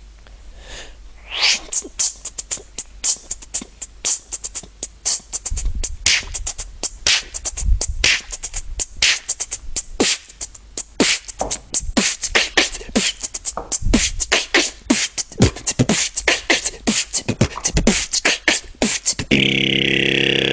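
Beatboxing: a fast vocal break of kick drums, snares, claps and a hissing hi-hat shuffle, one dense rhythm of mouth clicks. Near the end it gives way to a single held, pitched synth-like tone.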